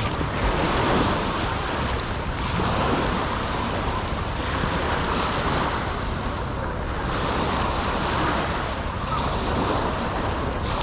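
Small sea waves washing onto a sandy shore, the surf noise swelling and easing every few seconds, with wind rumbling on the microphone.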